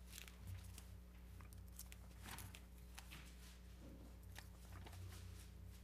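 Near silence: a steady low electrical hum, with faint scattered clicks and rustles.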